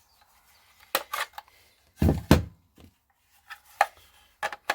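Plastic clicks and knocks of a cordless tool battery being handled, pulled off and slotted onto another power tool. There are two louder knocks about one and two seconds in, then a few lighter clicks.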